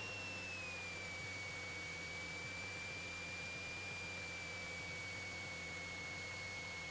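Cockpit intercom feed in a Cessna 172 holding on the runway: a steady high electrical whine that dips slightly in pitch about a second in, over a faint hiss and a low hum.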